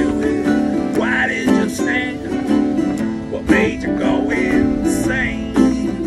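Two acoustic guitars strummed together in an upbeat country-style song, with a man singing over them in several short phrases.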